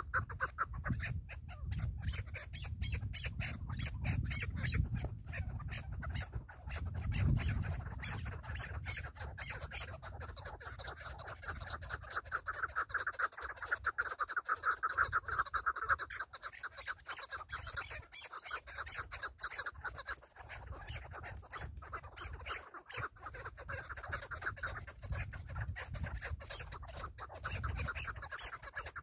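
Chukar partridges calling: a fast, continuous run of repeated clucking notes, loudest about halfway through.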